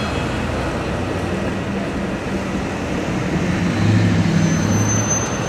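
Street traffic noise as a vintage PCC streetcar rolls past on its rails, with a low engine hum swelling about four seconds in and a thin high squeal near the end.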